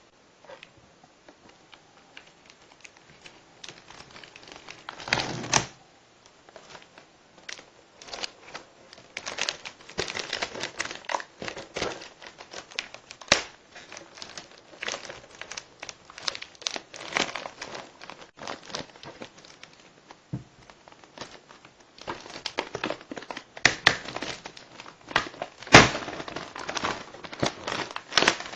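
Plastic wrapping on a DVD case crinkling and tearing as it is handled and peeled off, in irregular flurries of crackle, loudest about five seconds in and again near the end.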